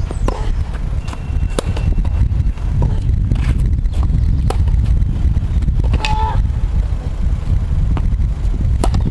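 Tennis ball struck by rackets and bouncing on a hard court during a rally: a series of sharp, irregularly spaced knocks. A brief voice comes in about six seconds in, and a constant low rumble runs underneath.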